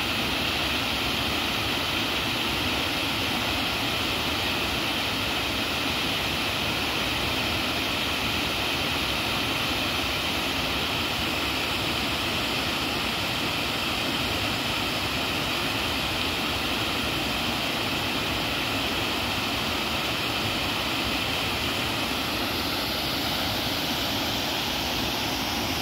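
Steady rushing of a small waterfall cascading into a rocky stream, an even, unbroken noise.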